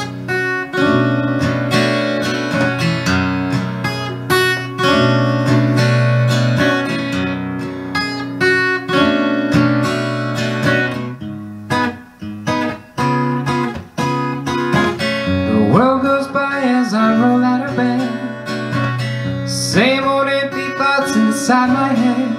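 Acoustic guitar playing the song's introduction, a run of picked and strummed notes with a couple of brief breaks partway through.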